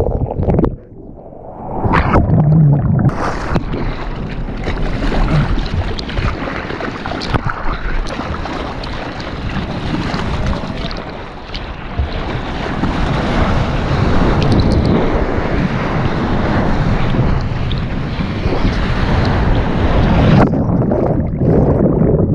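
Broken wave's whitewater rushing and churning around a waterproof action camera at water level, with water splashing over it; the sound goes briefly muffled about a second in, as the camera dips under.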